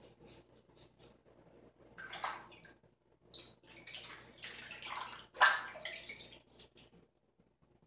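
Water splashing in a bathroom sink as a safety razor is rinsed clean, in irregular bursts from about two seconds in and stopping shortly before the end. A few faint razor strokes on stubble come before it.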